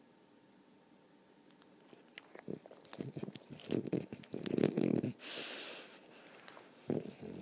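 French bulldog snoring. After about two seconds of quiet, an inhale with irregular clicks builds into a loud, low, rumbling snore, followed by a long hissing exhale; the next snoring inhale starts near the end. This is the noisy breathing typical of the breed's short, flat-faced airway.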